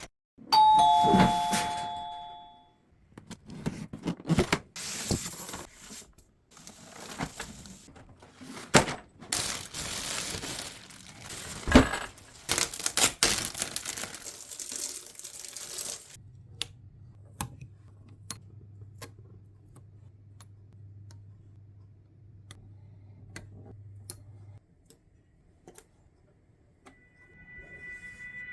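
A two-note ding-dong doorbell chime, high then low, ringing out. It is followed by about fourteen seconds of tearing, crinkling and knocking, the sound of a packing box being opened. Then comes a faint low hum with light ticks.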